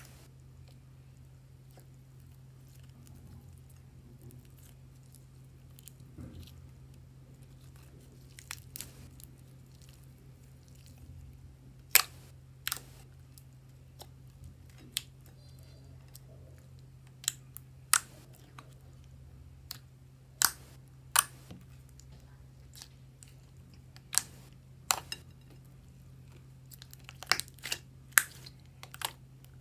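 Homemade lipstick slime being squeezed and worked by hand, giving sharp, irregular pops and crackles that come thicker in the second half, over a steady low hum.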